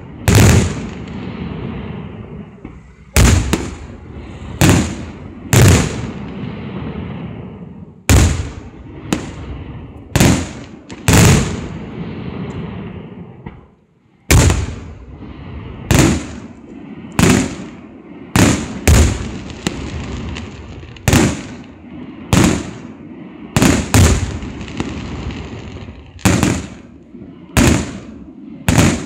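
Aerial fireworks shells bursting one after another, a sharp bang roughly every second with a rumble between them. There is a short lull about halfway through before the bangs resume.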